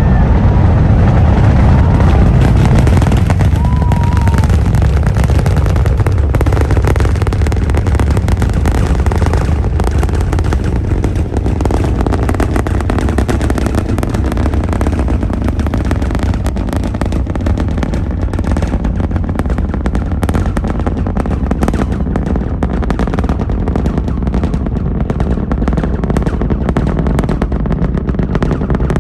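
Artemis I Space Launch System rocket in ascent, its two solid rocket boosters and four RS-25 engines making a deep, continuous rumbling roar. Dense crackling runs through it and grows sharper and more distinct in the later part.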